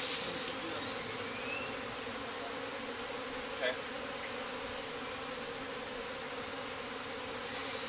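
Many honeybees buzzing steadily in a dense, even hum around an opened hive, with a few rising whines near the start as single bees fly close by.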